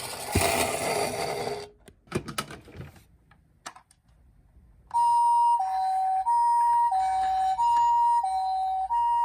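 Ambulance siren in the Japanese two-tone 'pii-poo' pattern, a high and a low note alternating evenly, each held a little over half a second; it starts about five seconds in. Before it, a short noisy clatter and a few scattered clicks.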